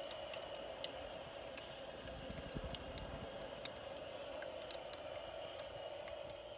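Vicks FilterFree cool mist humidifier running: a faint steady hum and hiss with scattered tiny ticks and spatters of water.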